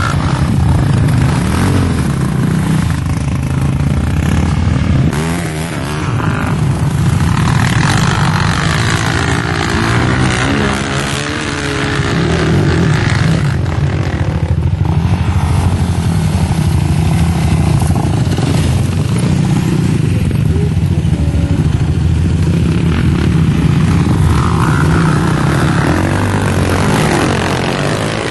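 Sport quad bike (ATV) engines revving as the quads climb and cross sand dunes, the pitch rising and falling with the throttle.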